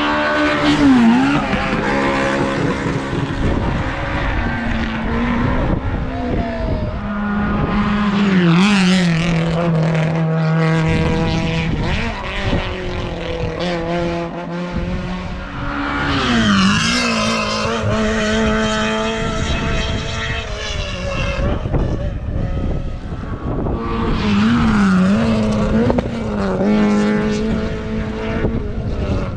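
Competition cars climbing a hillclimb course at full throttle, engine note rising hard and then dropping sharply at each gear change, again and again through the run.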